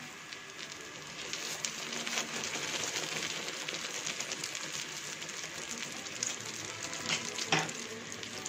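Malpua batter deep-frying in hot oil: a steady sizzle with fine crackling from the oil bubbling around the puffing pancake.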